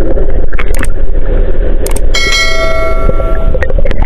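Muffled underwater rumble and water noise from a camera held under seawater. Two sharp clicks about a second apart are followed by a bell chime lasting over a second, the sound effect of a YouTube subscribe-button animation.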